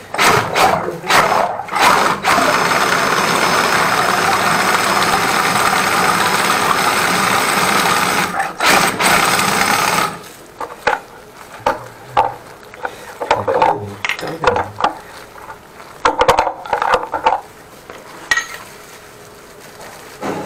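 Flex-shaft drain cleaner spinning its cable inside a blocked urinal drain line: a few knocks, then about eight seconds of steady running that cuts off suddenly, followed by scattered knocks as the cable is worked in the drain.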